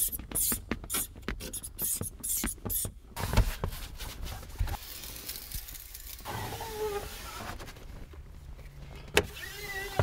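Rapid back-and-forth scrubbing strokes on a car's wet rear window glass, cleaning off leftover tint glue, for about three seconds. This gives way to quieter rubbing, with a single click near the end.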